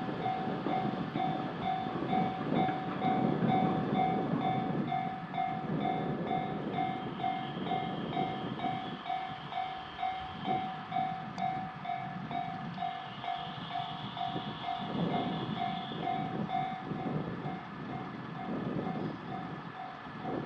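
Japanese level-crossing warning bell ringing in a quick, even ding-ding, about two to three strokes a second, while a train rumbles past with wheels clattering on the rails.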